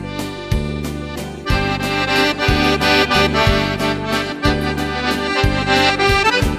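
Accordion music with a steady beat, its bass notes changing about once a second under sustained chords.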